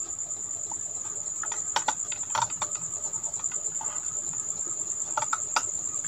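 Steady high-pitched insect trill with an even, rapid pulse, with a few soft clicks about two and five seconds in.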